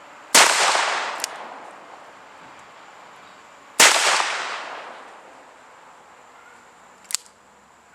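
Ruger Super Blackhawk .44 Magnum revolver firing two heavy hand-loaded rounds about three and a half seconds apart, each shot followed by a long echoing tail. Two much fainter sharp clicks fall between and after the shots.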